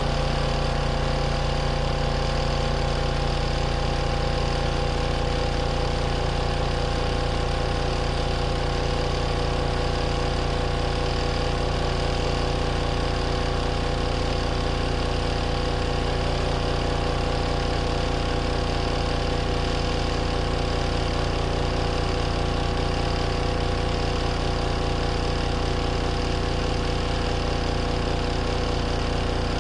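RV washing machine running with a steady motor hum and a few constant tones.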